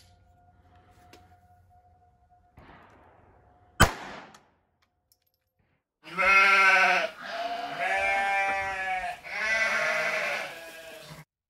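A Ruger LCP II .22 LR pistol fires a single shot about four seconds in. About two seconds later comes a loud, wavering, pitched call in three long parts, each about a second and a half.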